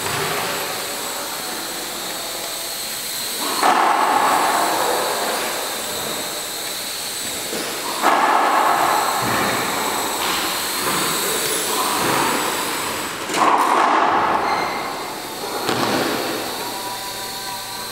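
Small toy quadcopter's propellers buzzing in flight, swelling sharply louder several times.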